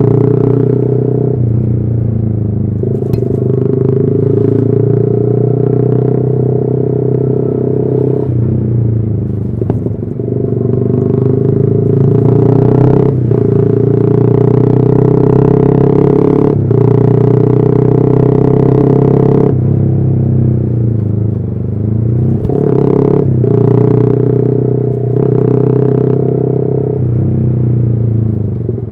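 Yamaha R15 V3's 155 cc single-cylinder engine running through an aftermarket exhaust while riding. The note holds steady for stretches and dips sharply several times, at about 3, 13, 17 and 23 seconds in, before picking up again.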